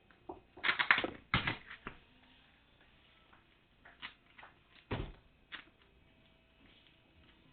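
Package contents and packaging being handled: a burst of rustling and clattering about a second in, then scattered clicks and a thump about five seconds in.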